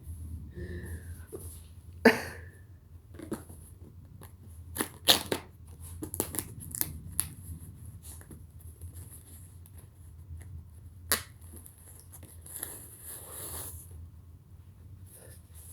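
Scattered short clicks and rustles, the loudest about two seconds in and again about eleven seconds in, with a cluster of them around the middle.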